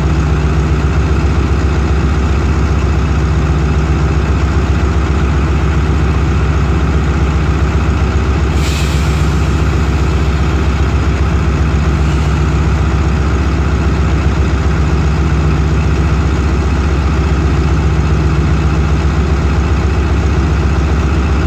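Pakistan Railways ZCU-30 diesel-electric locomotive idling at a standstill, a steady deep engine drone. A short hiss of air cuts in once about eight and a half seconds in.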